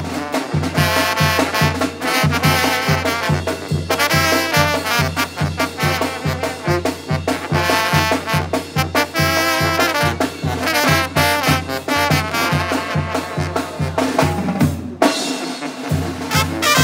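Tamborazo band playing live: trumpets, trombones, saxophone and a tuba over a steady bass beat from the tambora drum. The low beat drops out for a moment near the end, then comes back.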